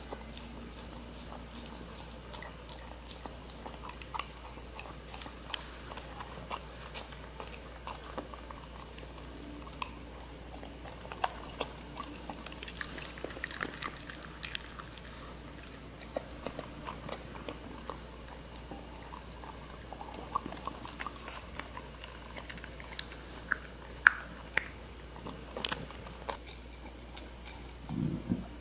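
Bedlington terrier eating a soft dog cake close to the microphone: irregular licking and chewing clicks, with one louder click toward the end.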